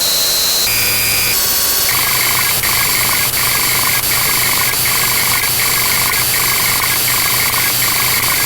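Loud synthesized electronic tones over a steady hiss. In the first two seconds there are a few steady beeps, each at a different pitch. After that a buzzy two-note tone pulses evenly, about once every three-quarters of a second.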